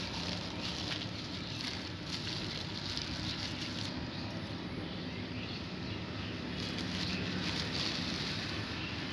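Plastic bag crinkling in the hands in irregular spells, over a steady low engine hum.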